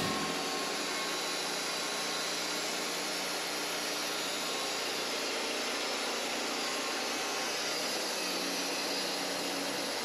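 Wood-Mizer LT40 Wide portable bandsaw mill running steadily, its band blade cutting through a sycamore log, an even rushing noise with a faint low hum under it.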